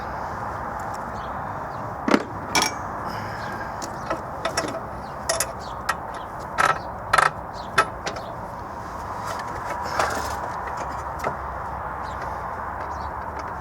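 Scattered sharp knocks and clinks of tools and parts being handled during engine reassembly, bunched in the middle, over a steady background hiss.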